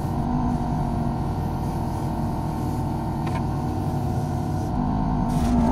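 Kubota U35-4 mini excavator's diesel engine running steadily under working load while the machine works its hydraulics to grip and lift a heavy log, with a light knock about three seconds in and another near the end.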